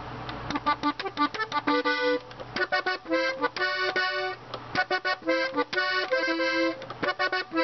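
Diatonic button accordion in G played on the treble buttons: quick runs of short single notes, with a few notes held longer in between.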